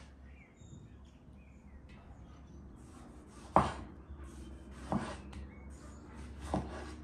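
Three sharp knife strokes on a wooden cutting board, about a second and a half apart, the first loudest, with faint bird chirps behind.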